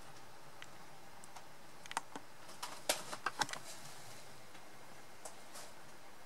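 Irregular sharp clicks and ticks over a steady faint hiss, bunched together about three seconds in.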